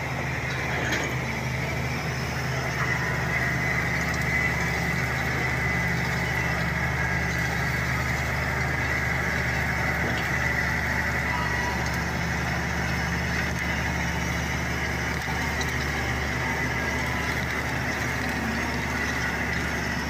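Shantui SD16 crawler bulldozer's diesel engine running steadily as the dozer pushes through brush and bamboo.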